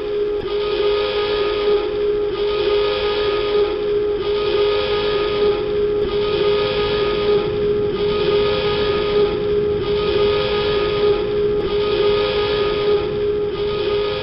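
Submarine dive alarm sound effect: a continuous steady tone with a buzzier, brighter blast repeating about every two seconds.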